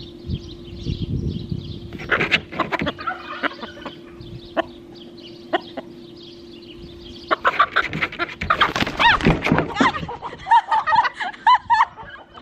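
Chicken clucking: a few short calls early on, then a dense run of calls in the second half, ending in quick repeated clucks.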